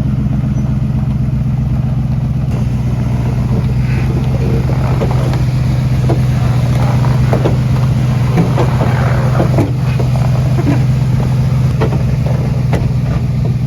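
Truck engine running at a steady speed, a constant low drone with scattered light clicks and knocks over it.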